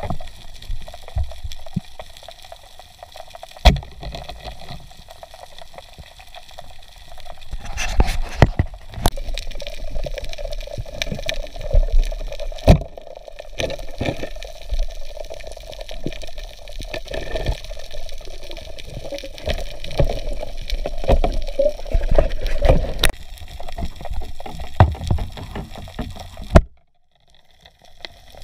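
Underwater water noise at a diver's camera: gurgling and sloshing over a low rumble, with many scattered sharp knocks and clicks. It cuts out near the end.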